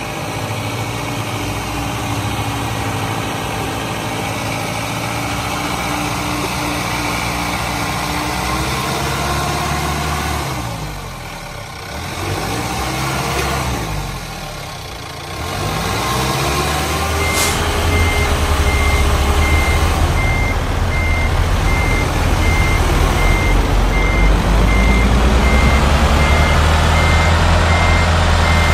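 Truck sound effect: a heavy engine running, its pitch sweeping up and down around the middle. A steady reversing beeper starts about two-thirds of the way through and keeps beeping while the engine grows louder.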